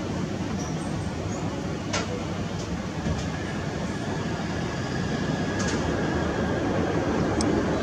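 Distant rumble of a Boeing 787-9 airliner's jet engines as it rolls out along the runway just after touchdown. The rumble grows a little louder over the last few seconds.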